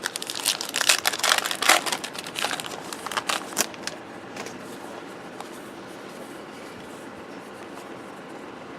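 A foil pack of Topps Heritage baseball cards torn open, its wrapper crinkling and crackling for about four seconds, then fainter handling of the cards.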